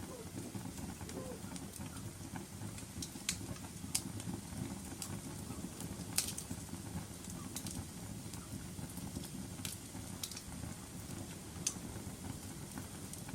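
Wood fire burning in a fireplace: a steady low rumble of flames with scattered sharp crackles and pops, half a dozen of them standing out loudly.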